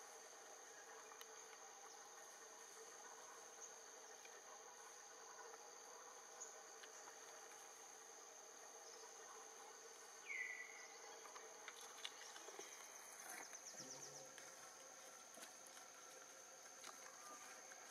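Faint, steady chorus of insects: a continuous high whine over lower droning bands. About ten seconds in comes one short chirp falling in pitch, then a few faint rustles.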